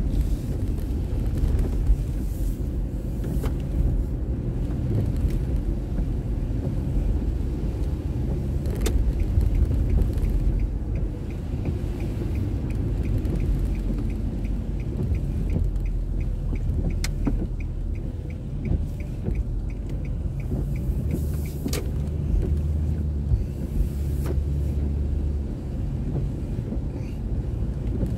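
A car driving, heard from inside the cabin through a dashcam: a steady low rumble of engine and road noise. A regular ticking, typical of a turn-signal indicator, runs for about ten seconds in the middle.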